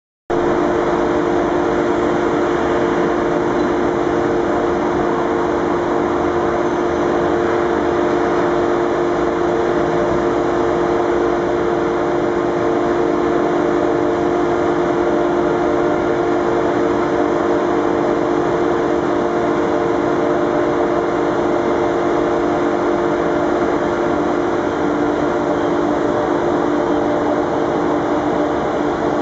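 Steady electrical and mechanical hum of ICE electric trains standing and moving in the station throat, with a few fixed low tones over a noisy rumble. It cuts in suddenly just after the start and does not change.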